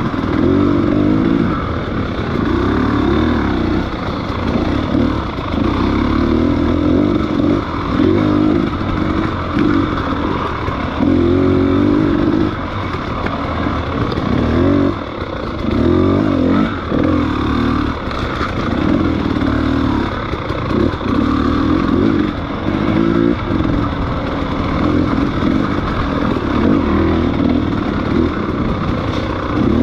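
Motorcycle engine running under way, its pitch rising and falling again and again as it is revved and eased off, with some clatter.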